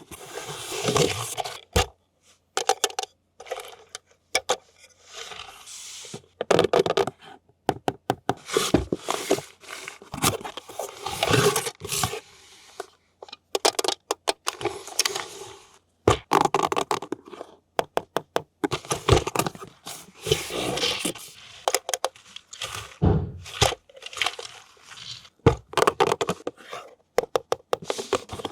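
Toy packaging being unboxed by hand: cardboard and plastic scraped, torn and crinkled, broken up by many sharp clicks and knocks.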